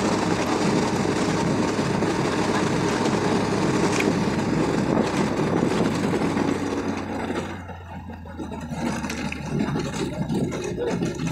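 Engine and road noise of a vehicle moving along a road, heard from inside; it gets noticeably quieter about seven and a half seconds in.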